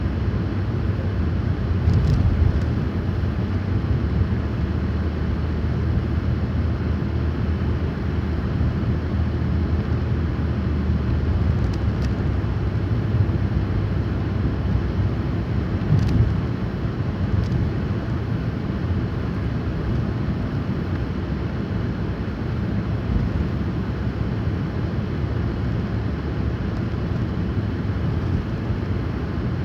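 Car driving on a snowy road: steady low road and engine rumble, with a few faint clicks.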